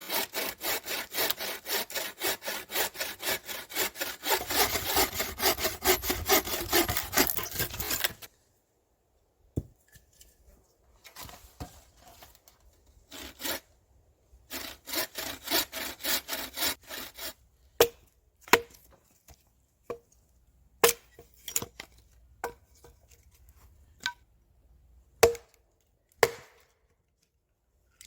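A saw cutting wood in quick, even strokes, about four a second for some eight seconds, then a shorter run of sawing a little past halfway. Scattered sharp knocks follow near the end.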